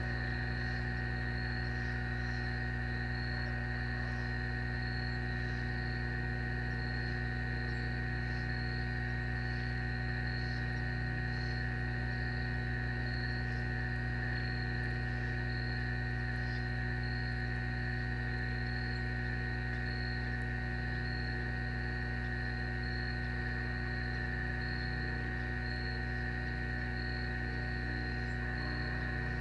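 Steady electrical hum from the nest camera's audio, with a faint, evenly pulsing high chirping of insects such as crickets behind it.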